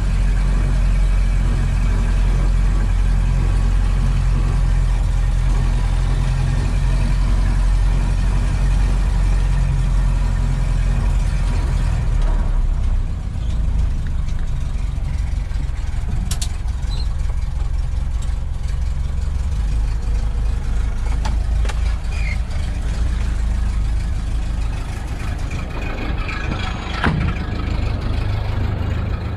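1929 Ford Model A's four-cylinder flathead engine running as the dump truck drives slowly, heard mostly from inside the cab. The engine sound drops a little about twelve seconds in, and a few light clicks and knocks come later.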